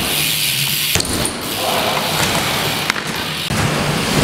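Bike tyres rolling and rumbling over the ramps of an indoor bike park, with a sharp knock about a second in and another near three seconds.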